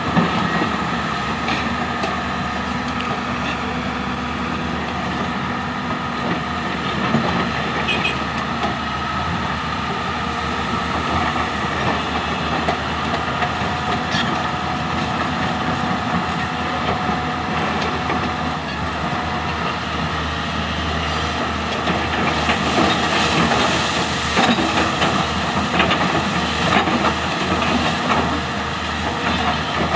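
Excavator working: diesel engine and hydraulics running steadily under load, with rattling and clattering that grows louder and busier for several seconds toward the end.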